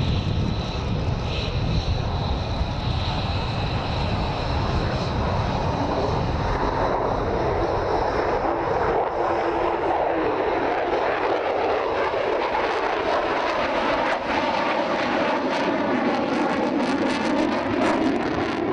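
Aircraft engine running steadily. About halfway through the sound turns brighter and its pitch wavers slowly.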